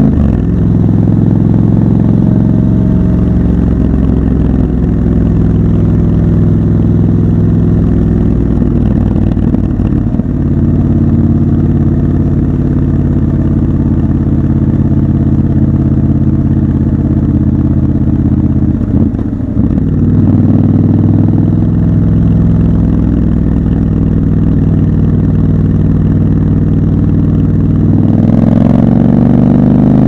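Triumph Scrambler 1200 XC's 1200 cc parallel-twin engine running as the bike rides through traffic, heard loud and close. The engine note holds mostly steady, with brief dips in revs about a third and about two thirds of the way through, and the revs rise and fall near the end.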